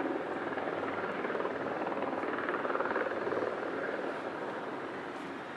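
Helibras AS350 B2 Esquilo helicopter in flight: the rapid beat of its three-blade main rotor over the noise of its turboshaft engine. The sound swells a little about three seconds in, then eases off.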